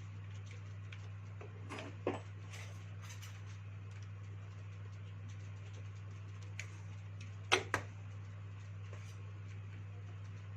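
A few sharp clicks from handling a dive torch, the loudest two in quick succession about seven and a half seconds in, over a steady low hum.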